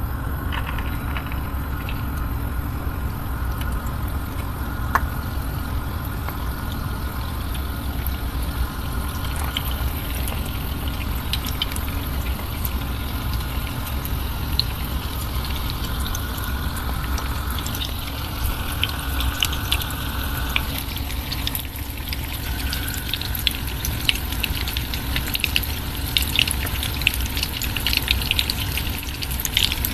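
Lumpiang togue (bean sprout spring rolls) sizzling in hot oil in a frying pan. A steady hiss, with crackling pops that start about a third of the way in and grow denser toward the end.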